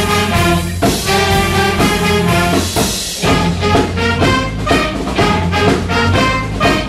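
School jazz band of trumpets, saxophones, clarinets and drum kit playing a brass arrangement of a pop song over a steady beat. The band stops briefly about three seconds in, then comes back in with quick repeated horn notes.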